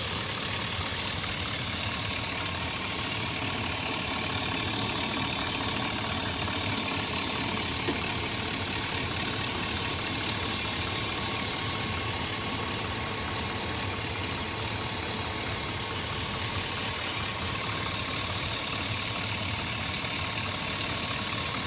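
A 2004 Chevrolet Silverado engine idling steadily, with a steady hiss over it. The hiss is the sign of an intake vacuum leak.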